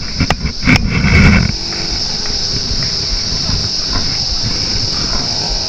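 Insects droning steadily at one high pitch. For the first second and a half, loud irregular low bursts and knocks sit over the drone, then only the drone and a faint low rumble remain.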